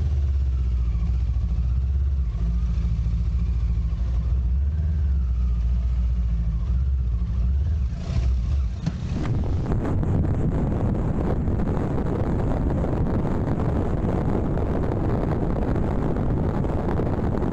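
Motorcycle engine running steadily at low speed, a deep drone. About halfway through it is swamped by loud wind rushing over the microphone as the bike rides on at speed.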